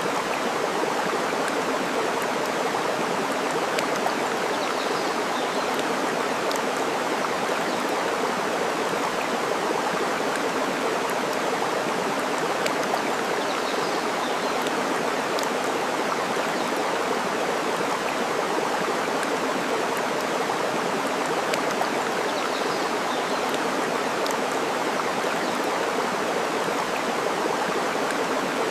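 Steady rush of flowing water, with a sharp crackle from burning campfire wood now and then.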